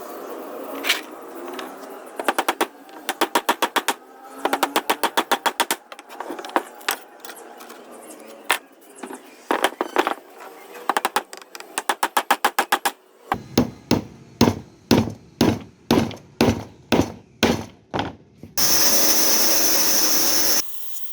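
Woodworking tool sounds: bursts of rapid tapping strokes, then slower strokes about two a second, then a steady hiss for about two seconds near the end.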